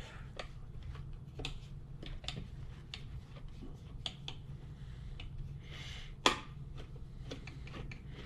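Small clicks and light knocks of screws and parts being handled while fittings are taken off the back of a steering wheel, with one sharper knock about six seconds in, over a low steady hum.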